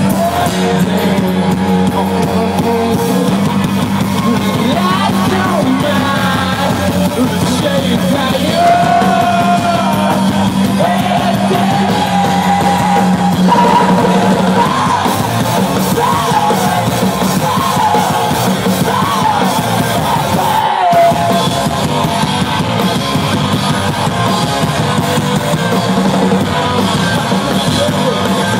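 Live rock band playing loudly, with guitar and a singer's sung and yelled vocals over the full band.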